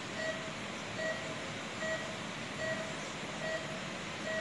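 Patient monitor beeping with the pulse: a short mid-pitched beep about every 0.8 seconds, six in all, over a steady hiss of room noise.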